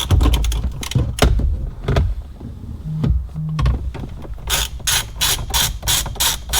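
Ratchet wrench with a 10mm socket clicking as it backs out a dash bolt: a few scattered clicks, a short pause, then a rapid even run of about five clicks a second near the end.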